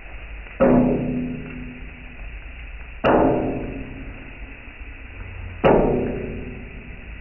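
Three loud struck percussion hits, about two and a half seconds apart, each ringing out and dying away over a second or two.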